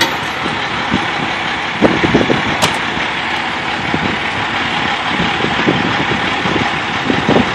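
Utility bucket truck's engine idling steadily close by, with a few short knocks and a sharp click around two seconds in.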